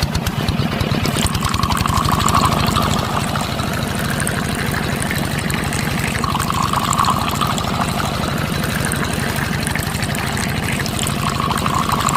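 A small motor running steadily with a fast rattle, swelling briefly about two, seven and eleven seconds in.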